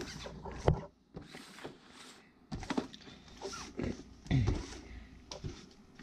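Small cardboard product boxes being handled on a plastic tabletop: rustling, sliding and a few light knocks, the sharpest a little under a second in.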